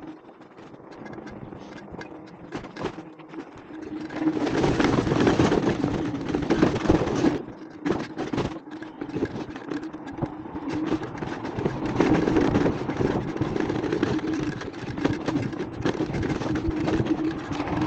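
Scooter riding over rough ground: a steady hum under a noisy rattle with many short knocks, louder from about four seconds in.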